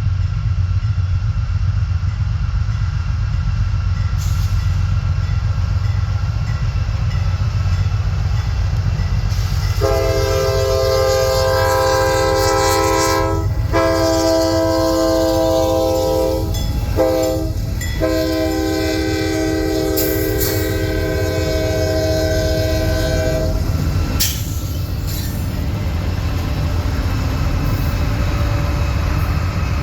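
Diesel freight locomotive running past with a heavy low rumble, sounding its multi-chime air horn in the grade-crossing pattern: two long blasts, a short one, then a final long blast that ends about two-thirds of the way through.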